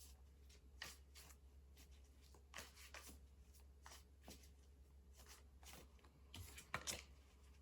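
Tarot cards being shuffled by hand: faint, irregular soft strokes of cards sliding and slapping together, with a slightly louder pair near the end.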